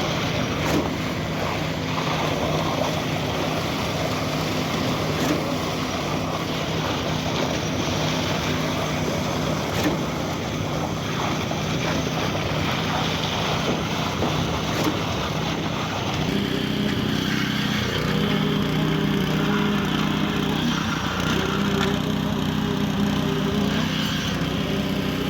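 Diesel engine of a truck-mounted concrete pump running steadily under load, with a short knock about every four and a half seconds in the first part, and its engine note shifting about sixteen seconds in.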